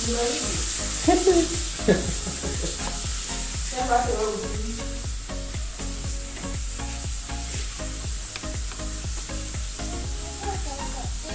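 Water running steadily with a fine splashing hiss, with a few short voice sounds about one and four seconds in.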